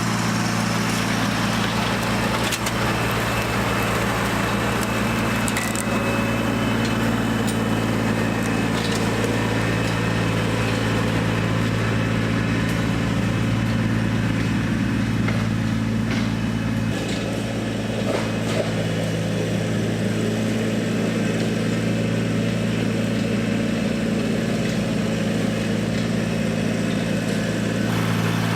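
Kubota BX23S compact tractor's three-cylinder diesel engine running steadily at an even speed.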